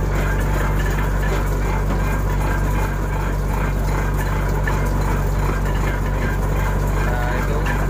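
Shrimp trawler's engine running steadily: a loud, even, low drone that does not change.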